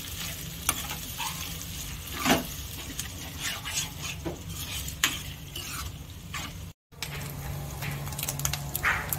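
Steel spoon scraping and clinking in a cooking pot as eggs are stirred and scrambled into fried onions and green chillies, with a light sizzle underneath. The sound cuts out briefly about seven seconds in.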